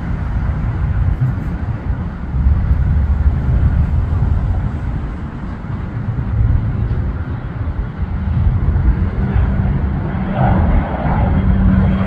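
Single-engine propeller airplane climbing out after takeoff, its engine drone mixed with a low, uneven rumble. A steady engine hum becomes clearer over the last few seconds.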